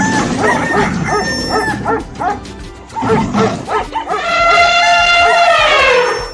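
Animal sound effects: a quick run of short, yelping barks, then one long howl that falls in pitch at the end.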